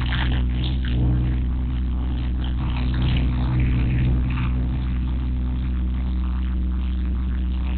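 JCB mini excavator's diesel engine running at a steady speed, with a low, even hum and a clattery rattle over it.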